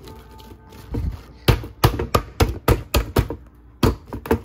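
A quick, irregular run of sharp hard-plastic clicks and knocks, about ten of them, as a plastic-wrap-covered Blendtec blender jar is handled and seated onto its base.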